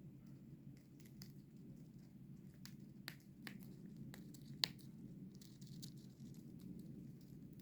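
Small parrot tearing and nibbling paper with its beak: faint crinkling and scattered small sharp clicks, the loudest a little past the middle, over a steady low hum.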